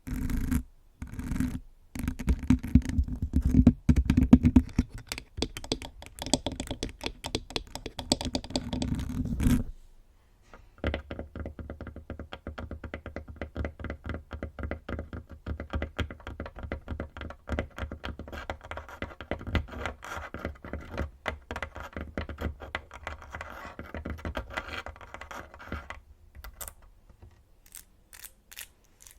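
Fingernails scratching directly on a microphone, with heavy low rumble. After a short pause about ten seconds in, they switch to quick, light fingernail tapping on a tabletop that goes on for about fifteen seconds, then fades to a few faint taps.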